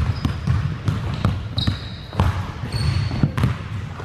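Basketball being dribbled on a hardwood gym floor: a run of separate bounces, with two short high squeaks in the middle.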